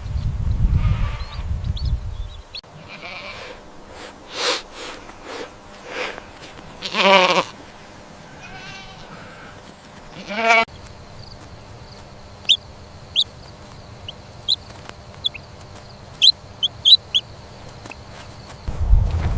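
A farm animal bleating several times, the loudest bleat about seven seconds in with a quavering pitch, another just past ten seconds. A low rumble comes first, and the second half has only short high chirps over a thin steady high whine.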